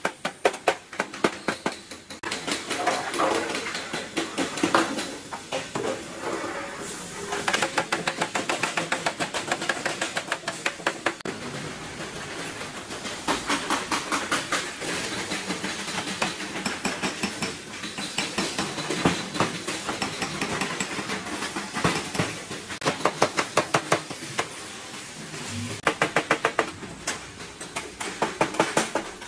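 Hand hammers striking the sheet-metal body shells of auto rickshaws in a rapid run of blows, with short pauses between bursts.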